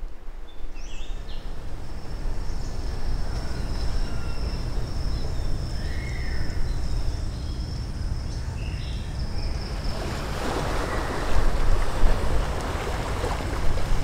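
Sea surf washing ashore, with wind rumbling on the microphone. The wash grows louder about ten seconds in. A steady high-pitched whine and a few short chirps sit above it.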